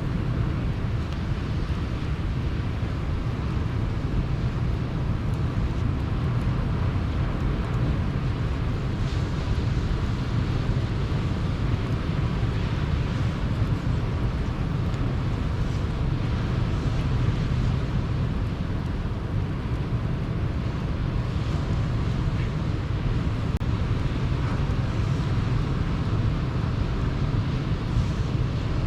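Sea waves washing ashore in a steady, continuous low rumble, with a few faint crackles from a campfire now and then.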